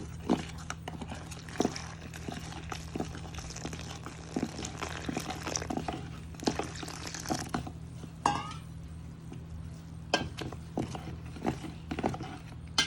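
Flour batter (rice, wheat and semolina flour with water) being mixed in a bowl: irregular wet squelches and clicks.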